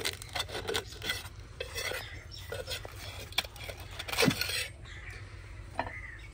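A knife blade scraping and prying a naan off the metal face of a tawa, in irregular rasping strokes, with one louder clank about four seconds in.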